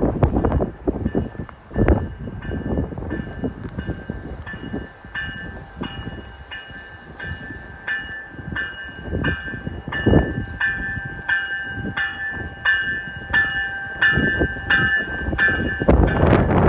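A warning bell ringing rapidly, about three strokes a second, over the rumble and wheel clatter of a GO Transit train moving through the station.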